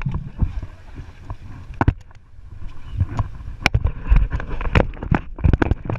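Irregular knocks and bumps against a small fibreglass fishing boat, over a low rumble of wind and water.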